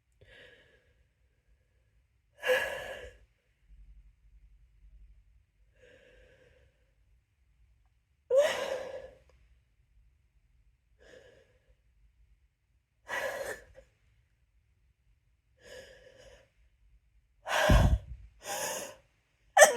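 A person's sneeze build-up: a series of short gasping in-breaths and sighing breaths every few seconds, the tickle building toward a sneeze. The last few breaths near the end come closer together and louder.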